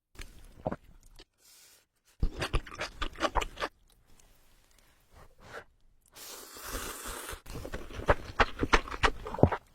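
Close-miked eating: bursts of crunchy chewing, with a steady hissy stretch about six seconds in between them.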